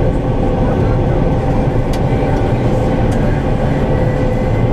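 John Deere 9500 combine running steadily: a loud, even mechanical drone with a constant hum.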